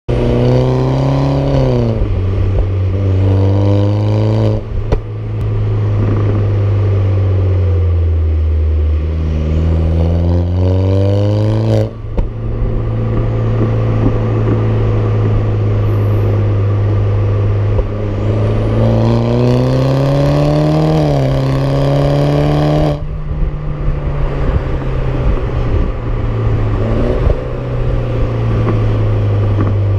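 Exhaust note of a BMW F20 116i through an aftermarket Supersprint exhaust, heard close to the tailpipes: the revs climb and drop sharply at several gear changes, with stretches of steady cruising in between.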